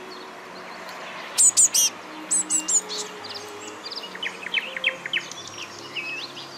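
Blue tits calling: a quick run of four loud, high chirps about a second and a half in, three more about a second later, then a softer, faster series of chirps around four to five seconds in.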